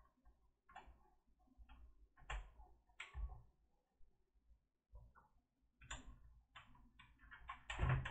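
Scattered light plastic clicks and knocks from a laptop's case and battery latches as the battery is worked free, with a quick run of clicks near the end as it comes loose.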